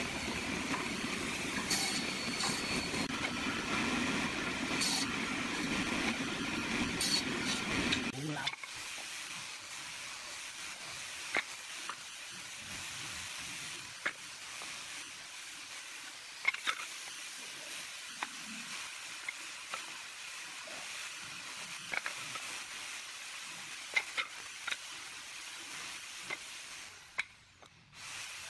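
Table saw running steadily for about eight seconds, then cutting off suddenly. After that, a quieter background with occasional light wooden knocks and clicks as small hardwood blocks and a try square are set down and marked with a pencil.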